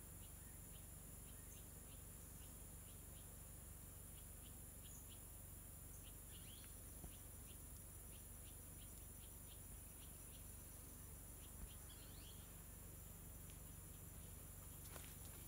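Faint insect chorus, a steady high buzz, with scattered short chirps and ticks through it. Footsteps on the dirt path start near the end.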